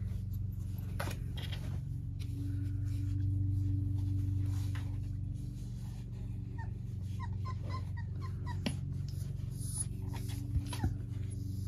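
Four-week-old puppies giving a run of short, high squeaks and whimpers in the second half, over a steady low hum.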